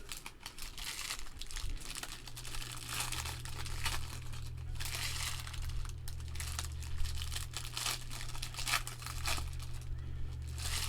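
Plastic wrapping crinkling and tearing as a sealed box of trading card packs is opened and handled, in irregular rustling bursts. A steady low hum comes in about two seconds in.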